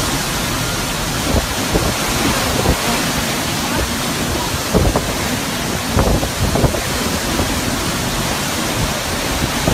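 Hurricane-force wind and driving rain: a dense, steady rush of noise, with gusts buffeting the microphone several times.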